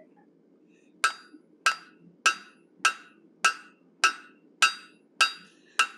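Hand hammer striking red-hot steel bar stock on an anvil, forging the cheek line of a bear head. Nine even blows, about one every 0.6 seconds, begin about a second in, each with a short metallic ring.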